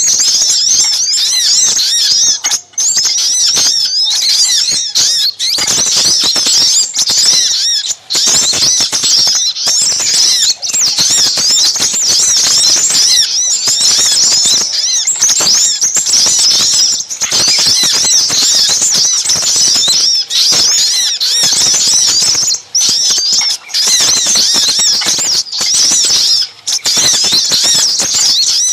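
Dense, busy chorus of high, rapid chirping and twittering calls from small birds, many overlapping with hardly a break. It is a bird-lure recording of sogok ontong calls mixed with sepah raja, used to call in small wild birds.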